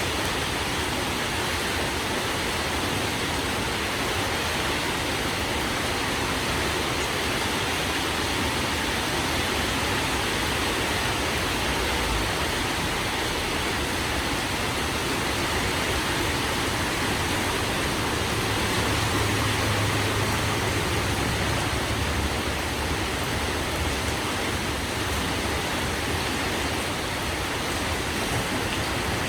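Heavy rain pouring down steadily, a dense even hiss, with a low rumble swelling briefly about two-thirds of the way through.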